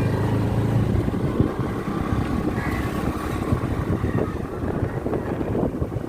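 A vehicle engine running steadily, with a rough rushing noise.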